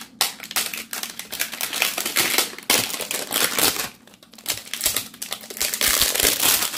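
Plastic wrapping on a boxed salt lamp crackling and crinkling in rapid bursts as it is unwrapped by hand, with a short lull about four seconds in.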